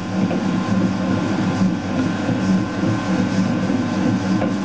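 Commercial planetary mixer running steadily, its motor and gearing humming as the hook kneads stiff egg pasta dough in the steel bowl.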